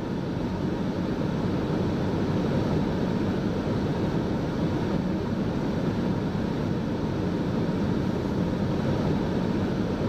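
Steady outdoor roar of wind and highway traffic, even, with no distinct knocks, horns or voices.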